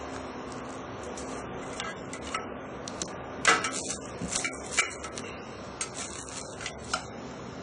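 Hands handling the small items and packaging of an unboxed mini camera: scattered light clicks and taps with some rubbing, the loudest knock about three and a half seconds in.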